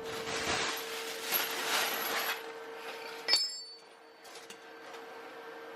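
Metal handling noise, then a single sharp metallic clink about three seconds in that rings briefly, over a faint steady hum.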